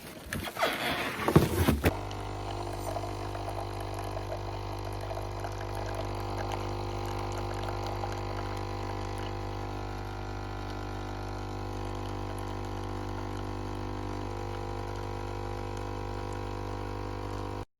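A steady mechanical hum made of several fixed tones over a strong low drone, holding level after a brief jumble of noise at the start and cutting off abruptly near the end.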